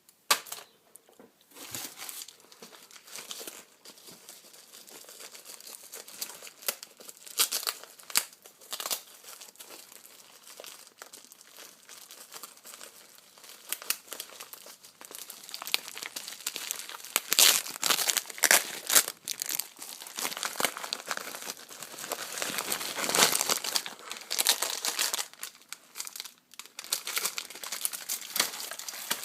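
Packaging being handled and opened: irregular crinkling, rustling and tearing with sharp crackles, busiest in the second half.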